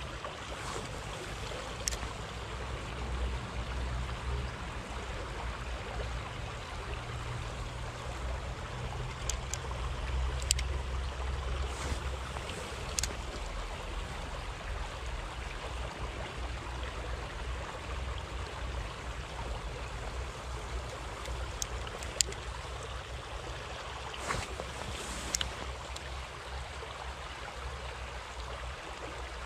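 Steady rush of shallow river water flowing over gravel, with a low rumble underneath that is heavier in the first half. There are a handful of sharp clicks, a few seconds apart.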